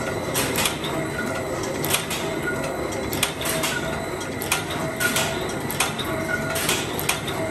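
Elastic cord knotting machine running in repeated cycles, one about every 1.3 seconds: each cycle brings a run of sharp mechanical clicks and clacks and a short whirring squeal from the knotting and feeding mechanism, over a steady machine hum.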